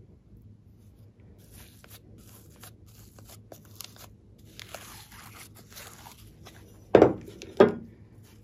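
Glossy slime topped with glitter being poked and pulled by fingers: faint sticky crackling and clicking that grows busier, then two loud squelching pops close together near the end as the slime is lifted and squeezed in the hands.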